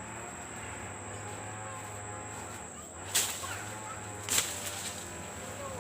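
Two sharp blows, about a second apart, with a short ringing after each, as a wooden hut is being knocked down. A steady high thin whine runs underneath.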